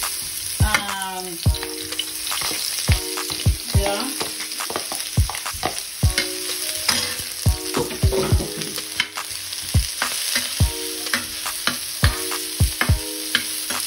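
Chopped onion and garlic sizzling in a little olive oil in a non-stick frying pan. Throughout, a metal spatula stirring them scrapes and clicks against the pan at an irregular pace.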